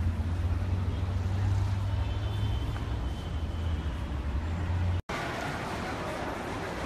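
Steady low rumble of vehicle engines in street traffic. About five seconds in it cuts off abruptly and gives way to the even, hissing din of a large indoor hall.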